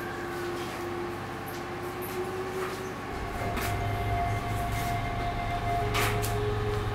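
Background film score of long held synth notes that change pitch slowly, joined by a low rumbling drone about three seconds in.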